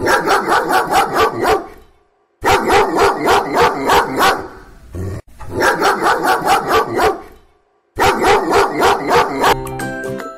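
A dog barking in quick runs: four bursts of about seven rapid barks each, with short silent gaps between them. Near the end, light chiming music starts.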